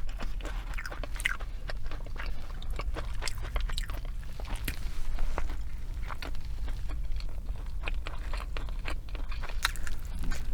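Close-miked chewing and crunching of fast food, a string of short wet clicks and crunches at irregular spacing, over a steady low hum.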